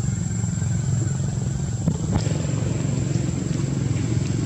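A steady low engine rumble, like a motorbike idling, with a thin constant high tone above it and a couple of faint clicks about two seconds in.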